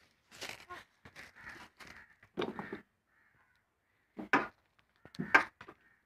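A bird calling in short, harsh calls, about five in a row, with the last two the loudest.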